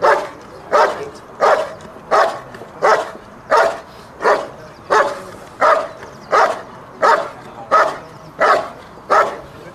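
German Shepherd dog barking steadily and rhythmically, about fourteen evenly spaced barks, a little over one a second, at a helper standing in the blind. This is the bark-and-hold of a Schutzhund protection routine, with the dog guarding the helper by barking rather than biting.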